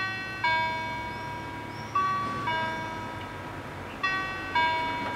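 Level-crossing warning bells ringing a two-note ding-dong, a higher strike then a lower one about half a second apart, repeating about every two seconds. They warn road users that a train is approaching and the crossing is closing.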